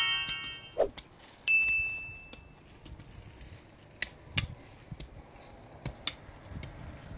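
A bright ding about a second and a half in, holding one high tone for about a second, the tail of an intro chime effect. It is followed by scattered light knocks and clicks over a low background.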